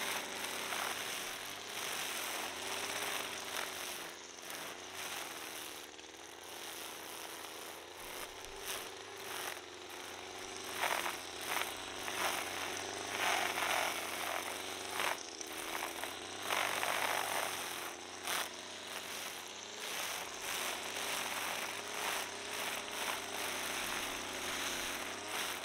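String trimmer running steadily at cutting speed, its spinning head whipping through grass, with louder stretches of cutting noise about halfway through.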